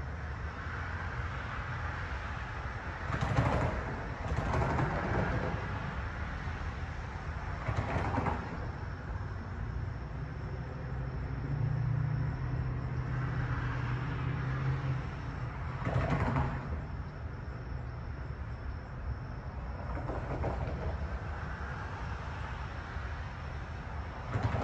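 Railway station background noise, steady, with several short noisy bursts spread through it and a low hum for a few seconds in the middle.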